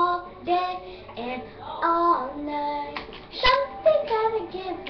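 A girl singing a tune, with held notes that slide between pitches. A single short knock about three and a half seconds in.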